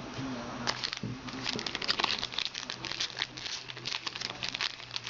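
Trading card pack wrapper crinkling and crackling in the hands, a run of irregular crackles that thickens about a second in.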